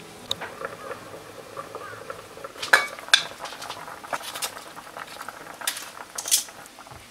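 Metal pot lid clinking sharply twice as it is lifted off a cooking pot, then the crumpled aluminium-foil drop-lid crinkling in short rustles as it is pulled off the simmering braise.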